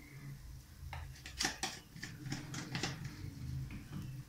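Mustard seeds popping and spluttering in hot oil with spices during tempering: a run of sharp irregular pops that comes thicker from about a second in, over a low steady hum.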